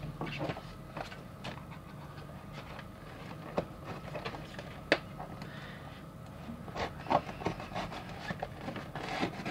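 A paperboard blind box being pulled from its case, handled and slit along its flap with a utility knife: soft rubbing and scraping of cardboard with scattered light clicks, a sharper one about five seconds in and several more in the last few seconds.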